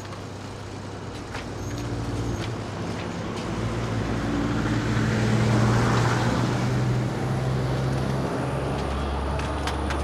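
A heavy road vehicle's engine driving past: a low engine hum with road noise that grows louder to a peak about six seconds in, then eases off to a steadier low rumble.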